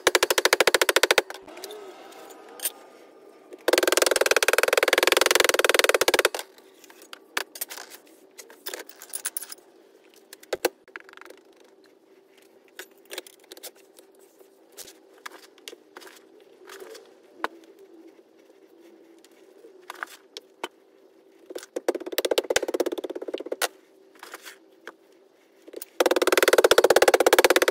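A mallet pounding Petrobond casting sand down into a steel moulding flask in rapid runs of blows: in the first second, around four to six seconds in, briefly near 22 seconds, and again near the end. Between the runs, scattered light taps and clicks as sand is crumbled by hand and the flask is handled, over a faint steady hum.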